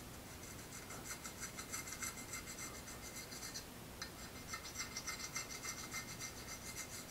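Razor blade scraping along a mountain-bike fork stanchion in quick, short strokes, shaving cured nail-polish filler flush so that it stays only in the scratches. The scraping is faint, with a short break a little past halfway.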